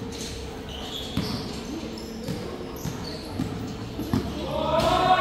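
Basketballs bouncing irregularly on a court floor as children dribble. A child's voice calls out near the end.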